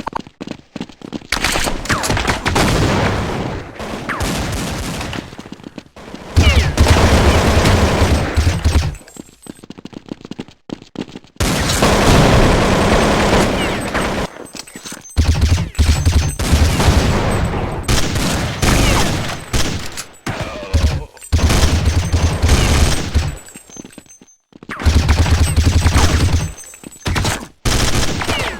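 A string of loud, rattling farts, one after another, each lasting one to three seconds with short gaps between.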